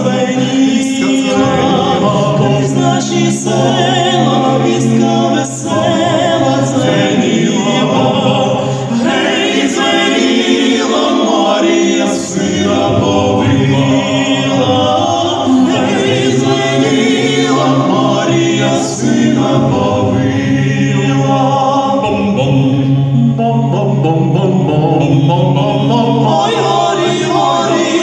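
Male vocal quartet singing in close harmony into handheld microphones, with a low bass voice holding long notes beneath the upper parts.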